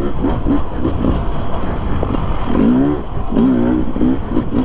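Enduro dirt bike engine revving up and down as it is ridden over rough trail, with two clear throttle swells past the middle, over a constant rush of wind and ground noise.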